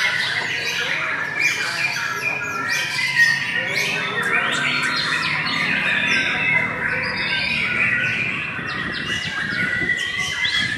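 White-rumped shama singing hard, a continuous stream of quick, varied whistles and chattering notes.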